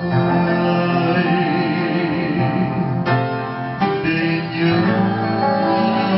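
A man and a woman singing a Vietnamese song as a duet into microphones, accompanied by acoustic guitar, with held notes sung with vibrato.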